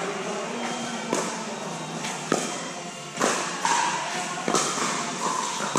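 Pickleball paddles hitting a hard plastic ball back and forth in a rally: four sharp pops, roughly one every second, over music playing in the hall.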